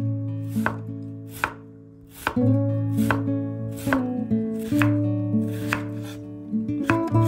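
Chef's knife slicing an onion on a wooden cutting board: about nine knife strokes, each a crisp knock of the blade through the onion onto the board, roughly one a second. Soft background music plays throughout.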